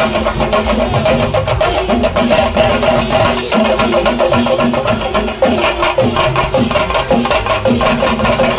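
Kerala chenda drum ensemble playing loud, fast, dense rapid stick strokes without a break.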